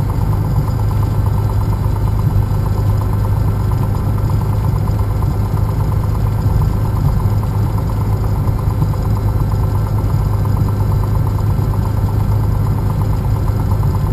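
Piper Lance's six-cylinder piston engine running steadily at low power, a constant even note heard from inside the cabin.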